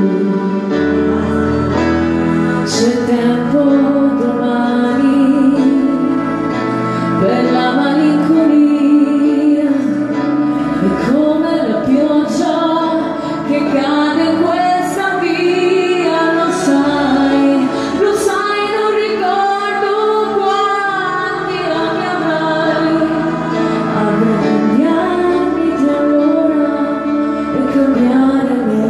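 Woman singing a wordless, gliding vocal line into a microphone over backing music of sustained chords and a bass line.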